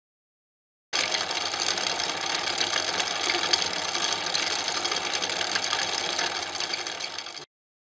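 Cine film projector running: a fast, steady mechanical clatter that starts abruptly about a second in and cuts off suddenly near the end.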